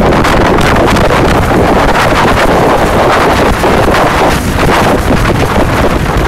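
Storm wind buffeting the microphone in a loud, unbroken rumble, with a plastic poncho flapping and crackling rapidly in the gusts.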